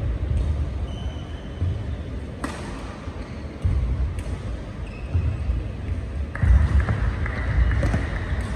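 Badminton rally: several sharp racket hits on the shuttlecock, a second or more apart, starting about two and a half seconds in. Between them come short squeaks of shoes on the court mat and heavy footfalls.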